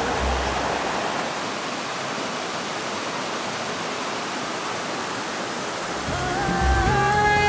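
Steady rush of water from the Bosna River's spring-fed channels spilling over a low weir. Music fades back in about six seconds in.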